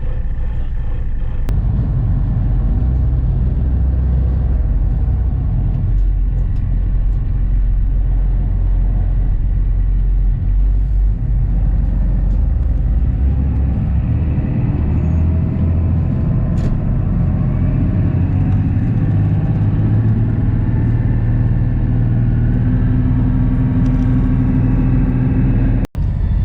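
Ferry's engine droning steadily, a deep rumble heard on board while under way, with a momentary break near the end.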